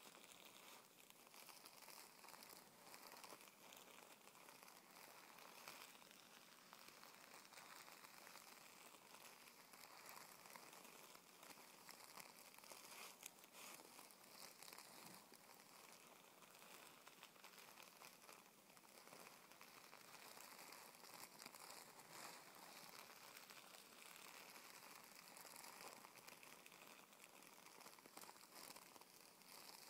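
Fingers rubbing and scratching over a sheet of crumpled tissue paper, making a quiet, continuous crinkling and rustling.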